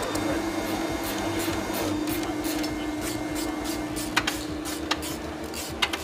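Steady mechanical whine and hum of machinery running, with a few sharp clicks from about four seconds in and again near the end.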